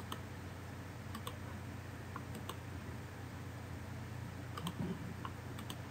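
Faint, scattered clicks of a computer mouse, about a dozen, some in quick pairs, over a steady low room hum.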